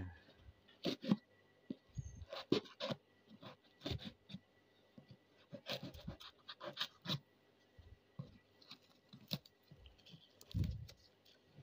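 Parcel packaging being handled and opened by hand: irregular scratching, scraping and clicking of plastic and tape.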